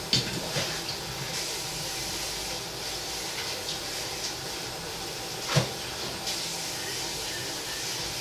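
Egg-and-tomato omelette mixture sizzling steadily in a frying pan. There is a knock right at the start and a sharper clack about five and a half seconds in.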